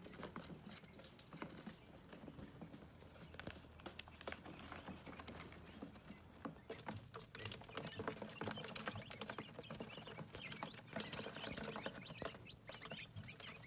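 Quail chicks pecking at feed on paper towel: a busy scatter of small taps and scratches, busier from about halfway on, among soft chick cheeps.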